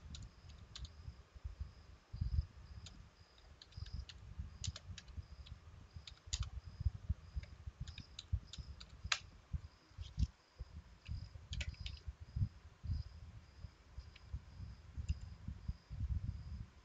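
Typing on a computer keyboard: irregular single keystrokes and short runs of key clicks, with a low rumble underneath.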